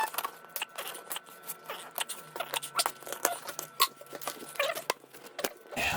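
A cardboard shipping box being cut and opened: irregular snipping, scraping and crackling clicks of tape and cardboard.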